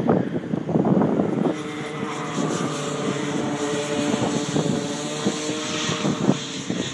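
Go-kart engine running at speed on the circuit, with a steady, slightly wavering engine note. Wind gusts on the microphone during the first second or so.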